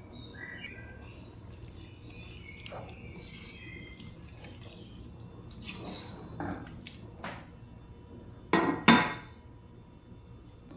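A wooden spoon stirring chopped tomatoes in a granite-coated pot, knocking lightly against the pot a few times, then a glass lid set on the pot with two loud clatters close together near the end.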